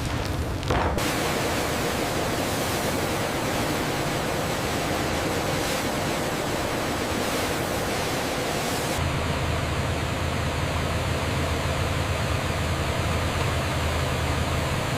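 Steady rushing hiss of factory background noise; about nine seconds in the sound changes and a low steady hum sets in beneath it.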